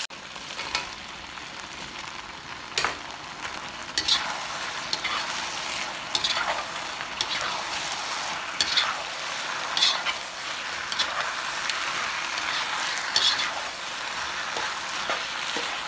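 Chicken and vegetables in sauce sizzling in a non-stick wok as they are tossed with a metal slotted spoon, which scrapes and knocks against the pan every second or few.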